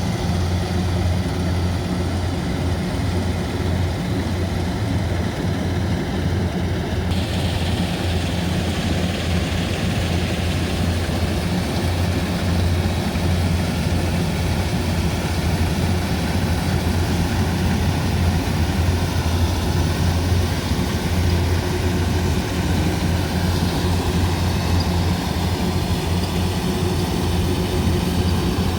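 Rice combine harvester's engine running steadily with a deep, even hum. About seven seconds in, a brighter hiss joins it.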